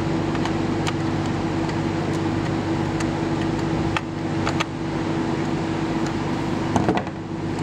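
A steady machine hum throughout, with a few light clicks as a flathead screwdriver tightens the flash bar onto a prop press camera.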